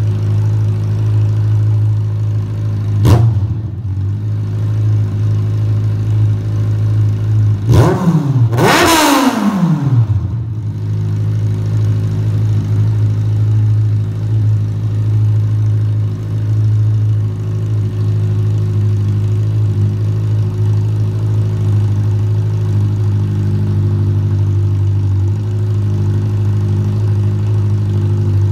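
2007 Kawasaki Z1000's inline-four engine idling loudly through a muffler-deleted exhaust. It is blipped once briefly about 3 seconds in, then revved harder about 8 seconds in, the pitch climbing and falling back to a steady idle over about two seconds.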